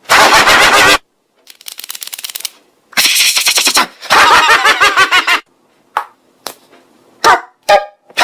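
A man's voice making vocal sound imitations, pitch-shifted up and boosted until it distorts into a harsh, rattling buzz. It comes in several loud choppy bursts with short gaps, then a few brief blips near the end.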